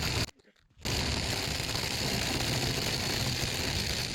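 Hyper Tough 20-volt cordless impact driver running continuously, its hammer mechanism rattling at a steady pitch after a brief gap about half a second in. The motor is still running under a prolonged torture run while the housing overheats.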